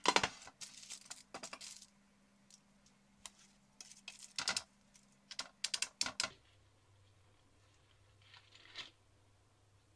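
Baking mould being unmoulded on a baking tray: a few scattered groups of short clicks and knocks as the mould is pressed and the baked cookies are pushed out with a wooden stick.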